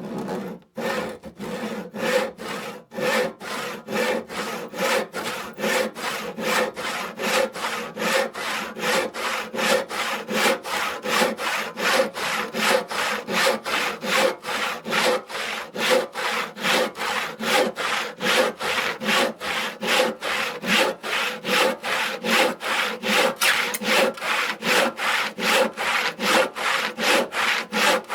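Hand crosscut saw cutting through wood with steady back-and-forth strokes, each stroke a rasping rub of the teeth in the kerf, in an even rhythm.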